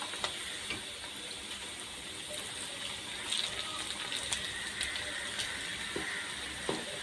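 Oil sizzling steadily around cabbage pakoras deep-frying in a kadhai, with a few light knocks of a slotted spoon as the fritters are turned.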